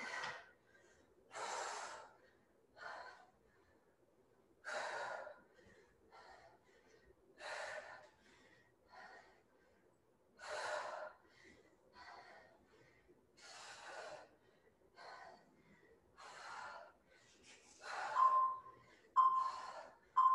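A woman's hard, gasping exhalations, one breath puffed out with each dumbbell squat-and-press rep, every two to three seconds. Three short beeps sound near the end.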